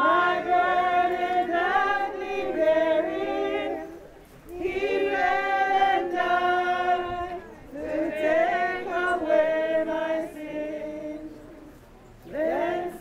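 A congregation of men's and women's voices singing a hymn unaccompanied, in long held phrases with short breaks between them.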